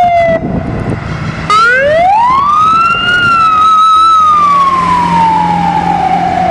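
Toy ambulance's electronic siren wailing. The tone falls, cuts out for about a second, then rises, holds briefly and slowly falls again.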